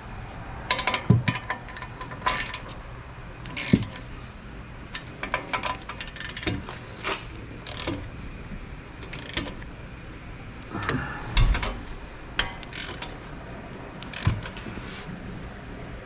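Hand ratchet clicking in short bursts as the wheel bearing hub's mounting bolts are tightened, with a few knocks of the tool against the hub.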